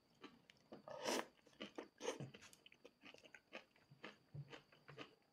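Faint chewing: soft, irregular mouth clicks and smacks, with a short louder noise about a second in.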